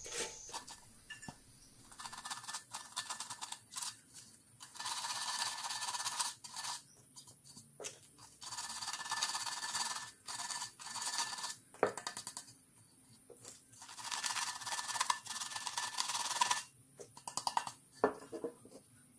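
Sandpaper scraping over the embossed rim of a painted metal tin, in several stretches of a few seconds each with short pauses between. The sanding wears the white paint off the raised decoration down to shiny bare metal, for a distressed look.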